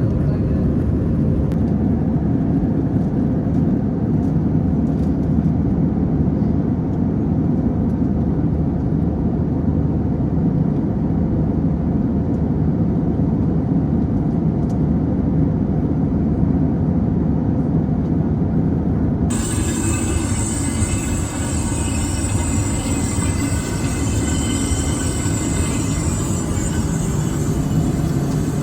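Airbus A321 cabin noise: a steady low rumble of engines and airflow. About two-thirds of the way through, a brighter hiss cuts in suddenly on top of it.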